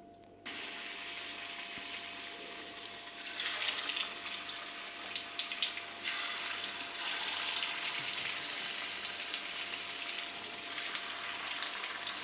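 Potato wedges frying in shallow oil: a steady crackling sizzle that starts suddenly about half a second in.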